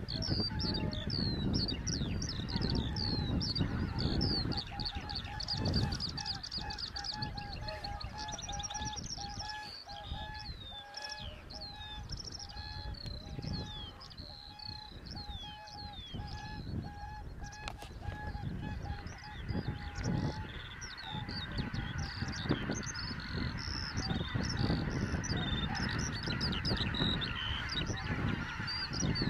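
A large flock of geese honking, many calls overlapping without a break.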